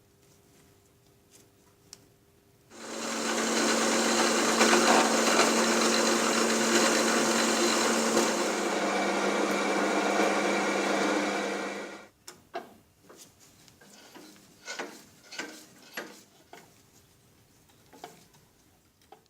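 A power tool runs for about nine seconds with a harsh, dense rasping noise over a steady hum that drops slightly in pitch partway through, then stops. Light clicks and knocks of metal parts being handled follow.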